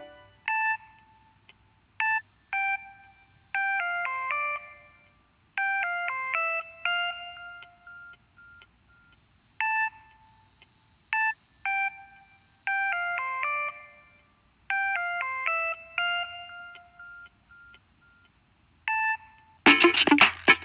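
Samsung SCH-R610 cell phone playing a simple electronic ringtone melody of short beeping notes, the tune repeating twice. Near the end a louder, fuller ringtone with a guitar-like sound cuts in.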